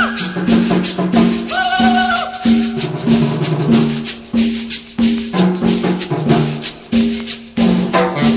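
Latin tropical dance music played over a sonidero sound system, with a steady beat, a shaker rhythm and a bass line. Short swooping tones rise and fall over the music near the start and again about two seconds in.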